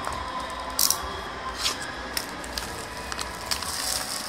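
Plastic shrink wrap crackling and tearing as it is worked off a cardboard trading-card box, in a few sharp crackles, the loudest about a second in, with denser crinkling near the end.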